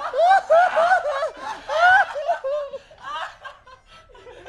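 A person laughing in a fast run of short, high-pitched pulses, about four a second, that tail off about three seconds in.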